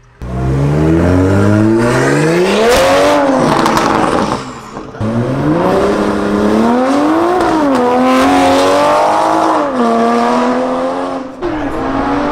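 Toyota Supra with a loud aftermarket exhaust accelerating hard, its engine note climbing steeply through the revs twice, with a lift between about three and five seconds in, then running on at a steadier pitch.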